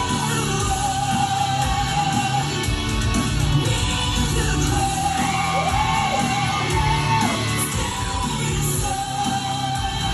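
Rock song playing, with a sung vocal over steady bass and guitar.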